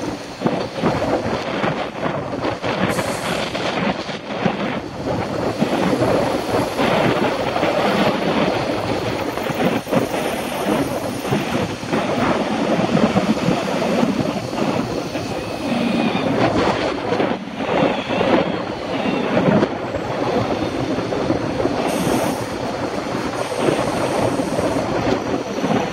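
Wind buffeting the microphone of a camera on a moving bicycle, an uneven rushing rumble mixed with the noise of tyres on the road surface.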